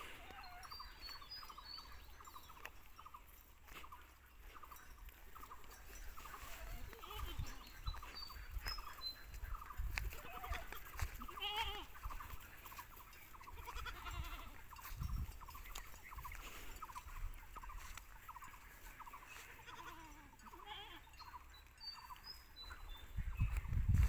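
Black Bengal goats bleating now and then as the herd walks along, with a low rumble on the microphone near the end.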